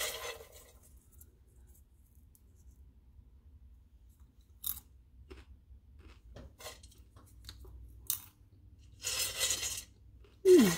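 Hand rummaging through freshly popped popcorn in a stainless steel bowl, then popcorn being crunched and chewed in scattered bursts, the longest about nine seconds in. A short falling hum from the eater comes near the end.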